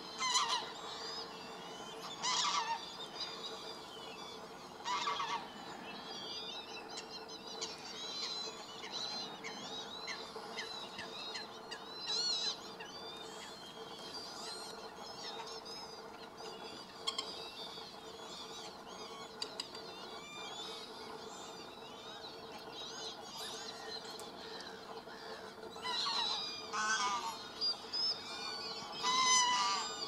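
Canada geese honking in short loud calls, three spaced a couple of seconds apart at the start and a cluster near the end, over continual faint chirping of smaller birds.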